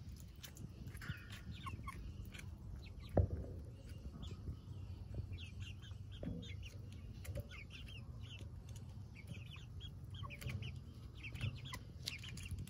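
Hens softly clucking and peeping, many short calls scattered through, with a single knock about three seconds in.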